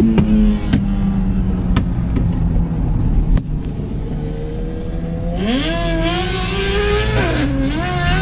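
Suzuki GSX-R1000 L7 inline-four with a full Akrapovic exhaust accelerating hard, its note rising steeply about five seconds in, dipping briefly and climbing again near the end. It is heard from inside a following car, over the car's steady engine and road hum.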